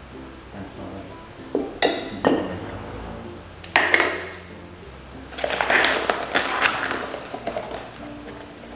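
Kitchen utensils being handled: a metal measuring cup clinks and taps against containers a few times, then there is a stretch of clatter and rustling of packaging about five to seven seconds in, over soft background music.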